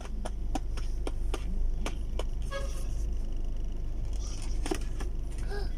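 Steady low rumble of a car's cabin on the move, with scattered light clicks and taps from small things being handled.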